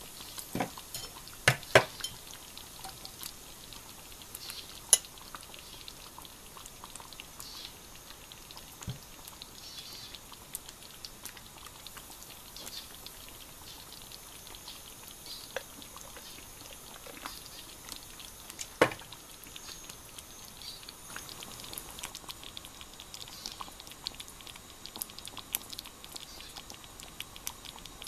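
Faint crackling fizz of bubbles, like a freshly poured, foamy beer or a simmering stew, with a few sharp knocks of tableware: two close together about a second and a half in, one more around five seconds, and one near the middle.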